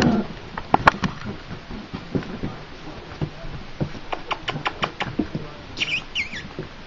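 Flat-coated retriever puppies, about three and a half weeks old, scuffling together, with scattered small clicks and rustles. There is a short low whimper at the start and a few high, wavering squeaks near the end.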